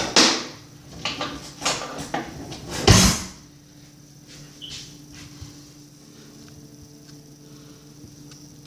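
Kitchen handling noises: clattering and knocking that end in a heavy thump like a cupboard or door shutting about three seconds in. After that there is only a faint steady hum.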